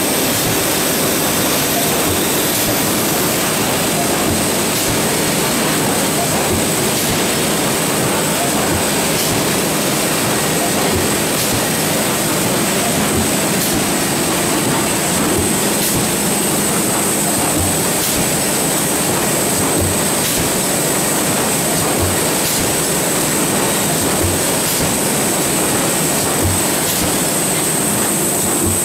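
Industrial machinery running steadily: a continuous noise with a thin high whine and a soft knock about every two seconds.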